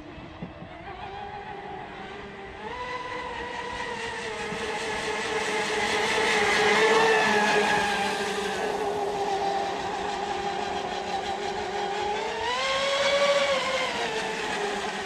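Electric drive of an RC catamaran speedboat running on the water, a high whine whose pitch steps up with the throttle. It grows loudest about halfway through, settles, then rises and falls again briefly near the end.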